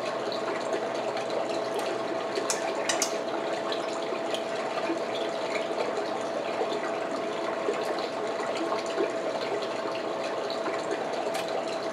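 King crab legs being eaten and handled, with a few sharp clicks of shell about two and a half and three seconds in and again near the end, over a steady hiss with a faint hum.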